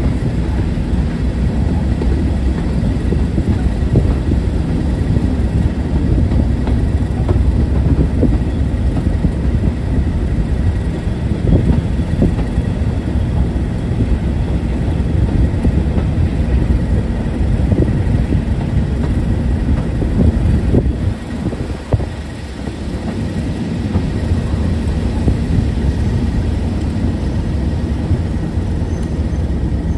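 English Electric V12 diesel engine of Class 37 locomotive 37075 working under power as it hauls a train, with wheel and rail noise. The sound drops briefly a little after twenty seconds in, then builds back up.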